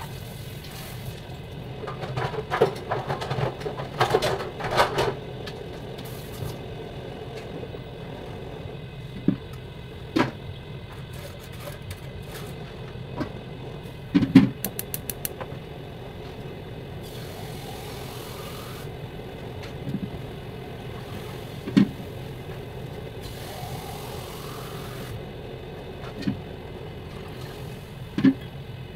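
Kitchen work over a steady mechanical hum: dishes and utensils clatter at the sink for a few seconds near the start. After that come scattered single knocks and clanks of cookware, including a large aluminium pot lid lifted and set back on the stove.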